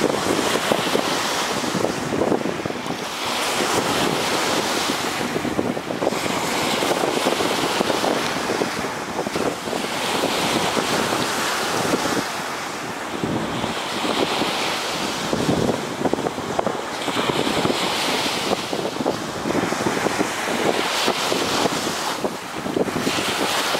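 Ocean surf breaking and washing on a sandy shore, swelling and easing every few seconds, with wind buffeting the microphone.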